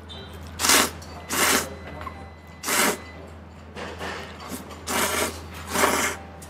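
A person slurping noodles in loud, noisy sucks, about six of them at roughly one-second intervals.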